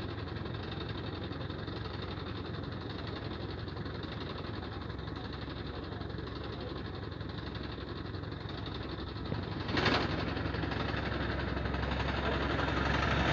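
Crane's diesel engine running steadily while it holds a tractor on the hook. A short burst of noise comes about ten seconds in, and the engine grows slightly louder near the end.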